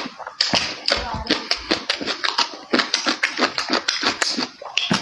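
Close-up eating sounds: wet chewing and lip smacking, a quick irregular run of sharp smacks and clicks, several a second.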